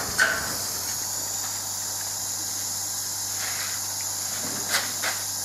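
Corrugated-metal shed door opened with a sharp knock and a short squeak just after the start, then two lighter knocks near the end as things are moved inside. Under it runs a steady high hiss and a faint low hum.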